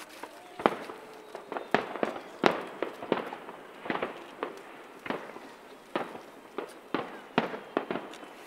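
Aerial fireworks shells bursting: a rapid, irregular series of sharp bangs, around two a second, each trailing off briefly.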